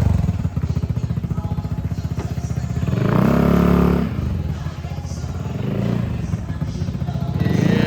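Motorcycle engine idling with a steady, fast pulsing beat, swelling louder for about a second around three seconds in.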